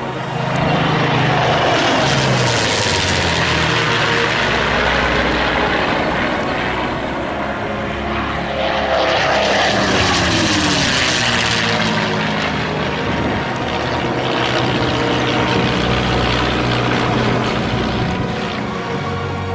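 Vintage piston-engined propeller aircraft flying past twice, the engine sound swelling and fading each time; on the second pass, about ten seconds in, the pitch drops as it goes by.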